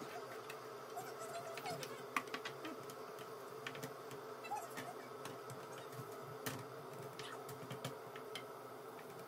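Diced onions sizzling in oil in a non-stick pan, with scattered crackles and the scrape of a wooden spoon stirring them, over a steady hum.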